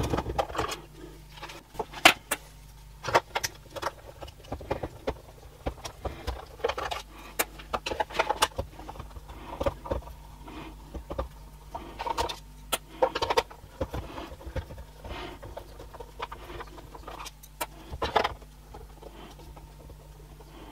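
Screws being taken out of a plastic projector casing by hand: irregular small clicks, taps and scrapes of a screwdriver and fingers on the plastic, over a faint steady low hum.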